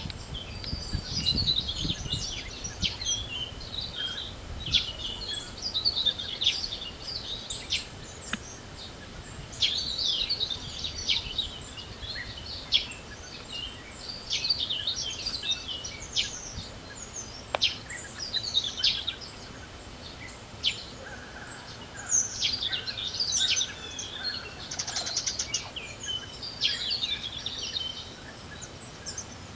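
Several songbirds singing and chirping together in dense, overlapping short calls, with a low wind rumble in the first couple of seconds.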